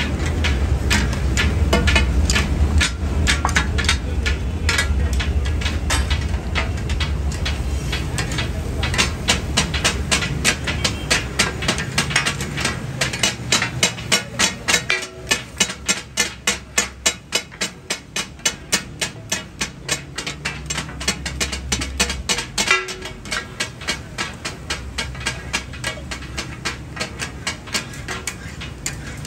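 Steel katakat spatulas striking and scraping a large flat iron griddle in a fast, even clatter as goat offal is chopped and gathered up. A low rumble runs underneath and drops away about three quarters of the way through.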